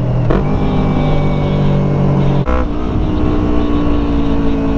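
Yamaha R3 parallel-twin motorcycle engine running at highway speed under wind rumble. It holds a steady pitch, then breaks about halfway through and settles at a lower pitch, like an upshift.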